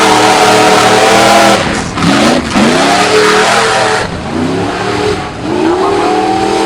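Offroad competition 4x4's engine revving hard, its pitch climbing, dropping sharply about two and a half seconds in and climbing again, with another dip near the end. A loud rushing noise lies over it for the first four seconds.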